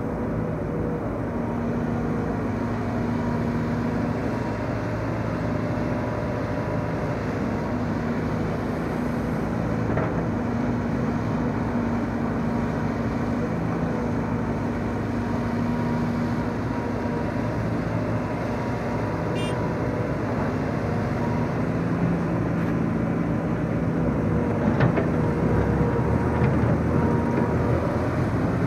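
Old Sumitomo crawler excavator's diesel engine running steadily as the machine swings and works. Near the end a deeper engine note joins as a tracked dump carrier pulls up.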